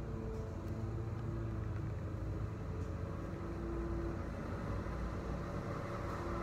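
Room tone: a steady low hum, with a few faint short tones now and then.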